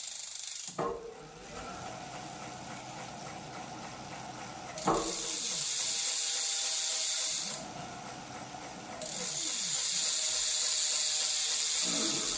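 Bafang 1000 W mid-drive motor, powered up on pedal assist level one, spinning the e-bike's drivetrain and rear wheel off the ground. Two surges of a loud hiss with a faint motor whine sit under it, each starting with a knock and sagging in pitch as the drive eases off.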